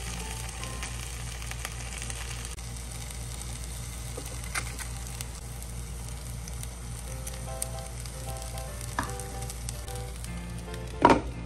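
Steady frying sizzle from a hot pan of chicken malai boti skewers being smoked with coal. A loud knock comes near the end.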